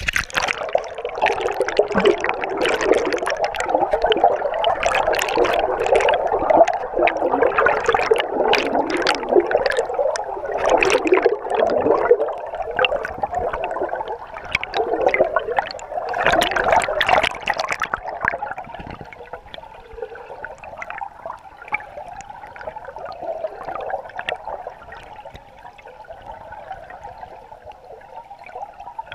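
River water rushing and splashing over a camera at and under the surface, heard muffled through the water, with many sharp splashes and bubbling for the first eighteen seconds or so, then a quieter, steady underwater rush.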